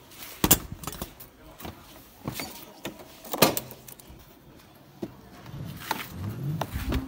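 Handling an electric scooter: the under-seat storage lid is shut with a knock, and there are several sharp clicks and a key jangling at the ignition switch.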